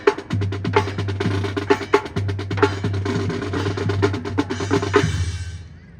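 Marching band drumline playing a fast cadence: rapid snare strokes over bass drums. It fades out about five and a half seconds in.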